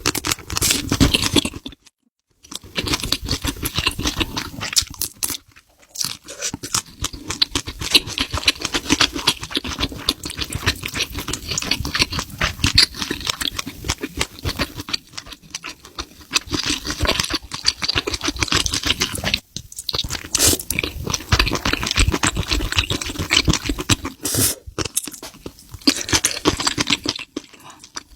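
Close-miked chewing and crunching of seafood, with a dense run of small wet clicks and smacks. The sound breaks off to silence briefly a few times.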